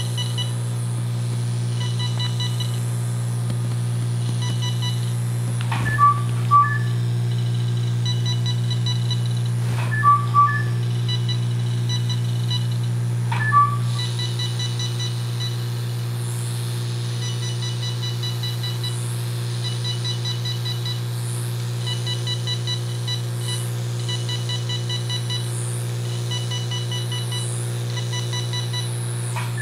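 Nordlys laser system's FRAX 1940 fractional handpiece firing on the skin: rapid trains of short, quiet beeps, a second or more at a time, that mark the laser pulses, over a steady low hum. A few louder two-note beeps sound in the first half.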